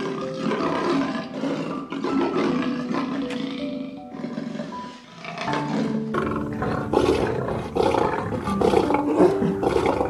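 Big cat roaring over soft background music with piano-like notes, the roaring growing louder and deeper from about six seconds in.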